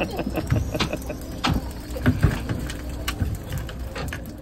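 A cast net full of herring being lowered into a cooler: irregular knocks, taps and rattles as the net's lead weights and the flapping fish hit the cooler and boat, over a low steady rumble.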